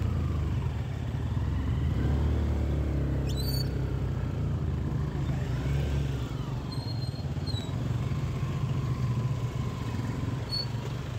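Vehicle engine running while driving along a rough road, a steady low hum with road rumble that rises and falls a little in pitch, with a few light rattles.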